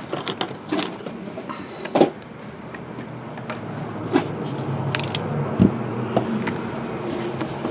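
Scattered clicks and knocks of objects being handled on a tabletop, over a low steady hum. The loudest knocks come about two seconds in and near five and a half seconds.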